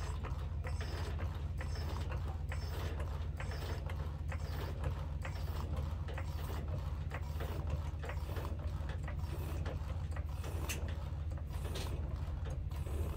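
Hydraulic floor jack pumped by its long handle under load, lifting a pickup truck by its rock slider: a run of mechanical clicks and creaks from the jack's pump and lift arm, stroke after stroke, over a steady low hum.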